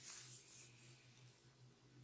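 Near silence: a faint rustle of hands rubbing during a massage, fading out after about half a second, over a low steady hum.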